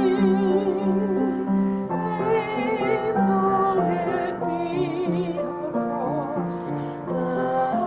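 A solo voice singing with vibrato in a classical style, accompanied by piano.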